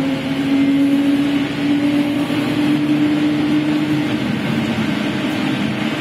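Ikarus-Ganz 280.94 trolleybus's Ganz electric traction drive whining while the bus runs: a steady tone that creeps up slightly in pitch, then fades out about four seconds in, leaving the running noise of the bus.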